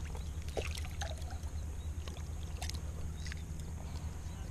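Light water sloshing and a few short clicks from handling a caught bass and lure in shallow pond water, over a steady low rumble and a faint steady high tone.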